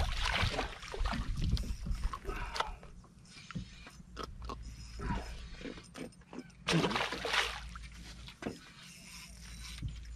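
A hooked trevally splashing and thrashing at the water's surface beside a small boat, then scattered knocks and clatter on the boat as the catch is handled.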